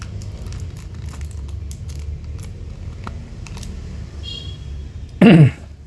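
Scattered light clicks and taps of small objects being handled, over a steady low hum. Near the end comes a short loud vocal sound.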